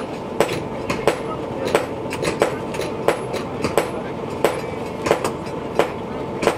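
Irregular sharp knocks, about two or three a second, over a steady mechanical hum.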